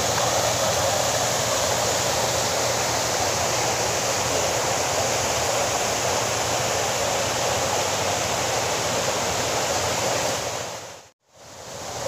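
Steady rushing of water from a waterfall and the shallow, pebbly stream below it. It fades out briefly near the end.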